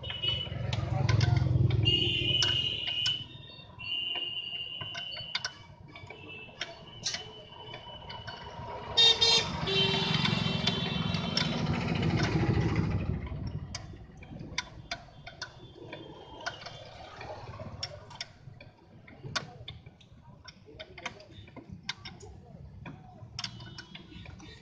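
Passing road traffic with vehicle horns honking: one vehicle goes by near the start and a louder one about nine seconds in. Light clicks and taps of hand work on the engine's hoses and plastic fittings run underneath.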